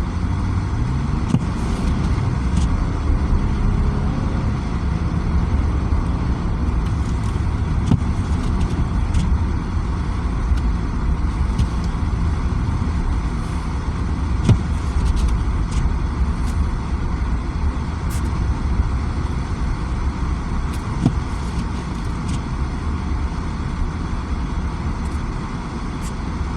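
Car driving, heard from inside the cabin: a steady low rumble of engine and tyre noise, with a few faint clicks and ticks.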